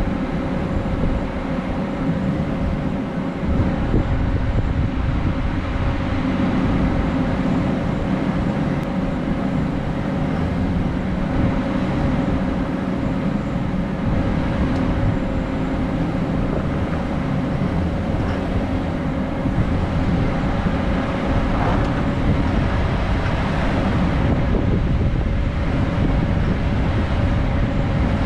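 Motor vehicle driving: a steady engine drone with a constant hum and low road rumble.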